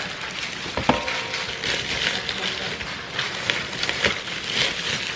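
Plastic Amazon poly mailer bag crinkling and rustling as boxed items are pulled out of it by hand, with a sharp knock about a second in.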